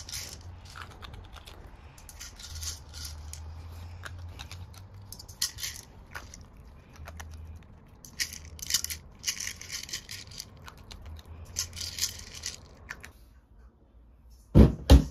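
Maltese dog crunching dry kibble from a wobbling treat-dispenser toy, crisp crackly bursts of chewing every second or two. After a short lull near the end, two heavy thumps.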